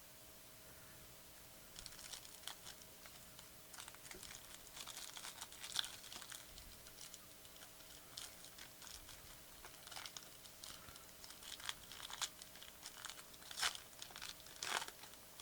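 Faint crinkling and tearing of a trading-card pack wrapper being opened and handled, in irregular crackles and clicks that begin about two seconds in and grow louder near the end.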